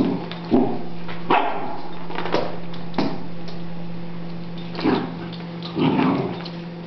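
Doberman puppy barking a few times while playing with a mechanical cat toy, with sharp knocks of the toy on a tile floor. A steady motor hum from the toy runs underneath.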